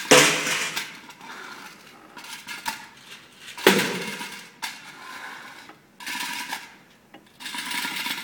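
Metal pails struck as percussion instruments: two loud hits about three and a half seconds apart, each ringing out, with softer knocks and scraping sounds between them and near the end.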